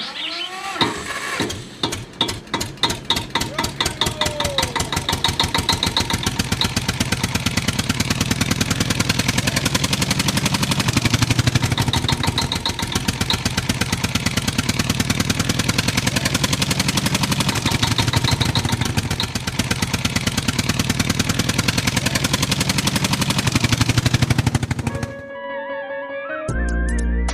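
An engine running with a fast, even chugging beat. The beat starts slow, speeds up over the first few seconds, holds steady, and cuts off suddenly near the end.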